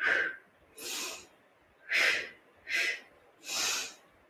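A woman breathing hard through a seated Pilates twist: five short, hissing breaths less than a second apart, paced with the turning movement.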